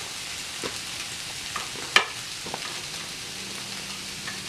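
Beef burger patties sizzling in a frying pan, with scattered light clicks of a metal spatula and one sharp clack about two seconds in as a patty is chopped open with the spatula to check whether it is cooked through.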